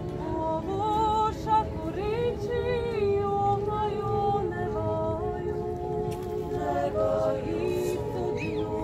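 A group of women singing a cappella in close several-part harmony, the voices holding and shifting long notes together.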